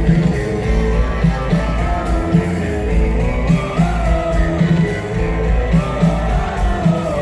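Live rock band playing on stage, with drums, bass and electric guitar over a steady beat and a sung vocal line.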